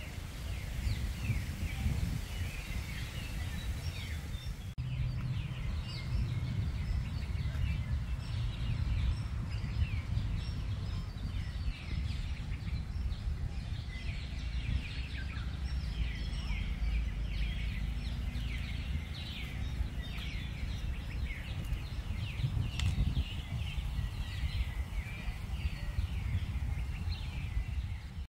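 Many birds chirping and calling in quick, repeated short notes, over a steady low rumble.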